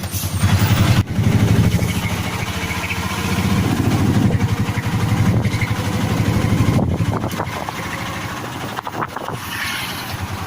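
Auto-rickshaw engine running steadily with a fast pulsing beat.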